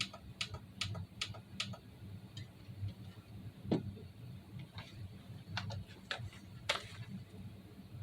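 Light, sharp clicks: a quick even run of about two or three a second at first, then a few scattered single clicks, over a faint low hum.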